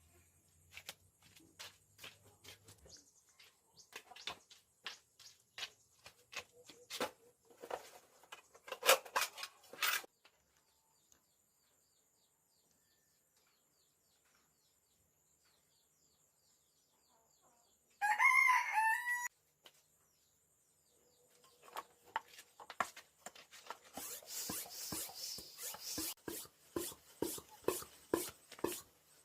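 Rooster crowing once, a loud wavering call about eighteen seconds in. Around it are irregular clicks and scraping of hand work on an old bicycle, ending in rapid repeated scraping strokes, about two a second.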